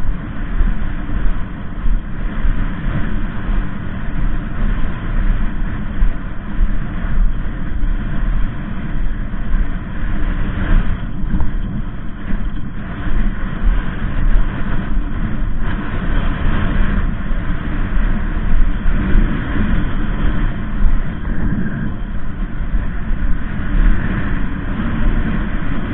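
Wind blowing across a body-worn action camera's microphone: a loud, steady low rumble that keeps rising and falling.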